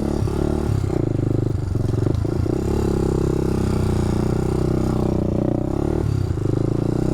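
Honda dirt bike engine running at low speed on a rocky trail, the throttle blipped on and off several times in the first couple of seconds, then held steady, with a short drop near six seconds.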